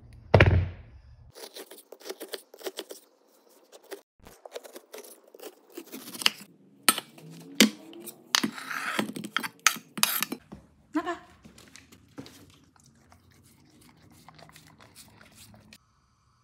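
Kitchen handling on a stainless steel counter: a cutting board set down with a loud knock at the start, then a run of clicks, knocks and clatter, densest in the middle, as frozen raw dog food cubes are handled and put into a stainless steel bowl.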